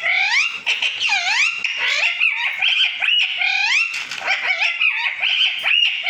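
Indian ringneck parakeet calling: a loud, almost unbroken run of high squawks and chatter, each call gliding up and then down in pitch.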